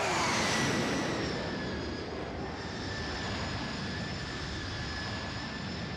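Sound effect of a sci-fi jet flying past: a steady jet rush with a whine that slides down in pitch over the first second or so and then holds, loudest at the start.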